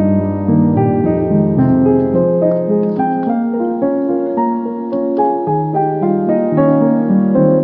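Instrumental background music: a keyboard melody of quick, evenly played notes over held lower notes.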